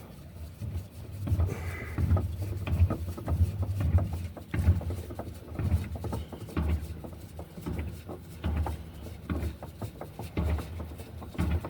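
Irregular knocks, clicks and scraping of hand work as a pre-filled spin-on diesel fuel filter is threaded back onto its filter head by hand.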